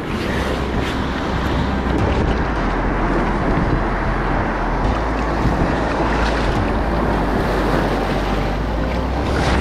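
Ocean surf rushing and splashing around a kayak as it rides a breaking wave in to the beach, a steady roar of whitewater. Wind buffets the microphone with a low rumble throughout.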